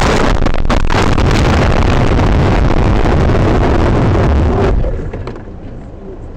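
Loud, continuous rumbling noise of a car crash as the dashcam, knocked from its mount, lies inside the crashing car. It drops off sharply about five seconds in.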